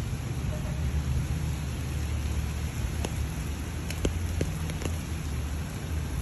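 Steady rain falling on wet pavement and puddles, with a low rumble underneath and a few sharp drop ticks between about three and five seconds in.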